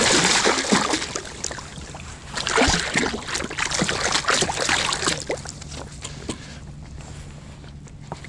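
Water splashing as a small hooked fish thrashes at the surface beside an inflatable boat, the splashes loudest in the first second and thinning out after about five seconds.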